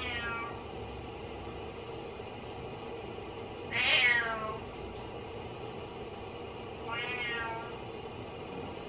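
Domestic cat meowing out of sight, calling for its owner in the shower: three drawn-out meows, each falling in pitch, at the start, about four seconds in and about seven seconds in, the middle one the loudest.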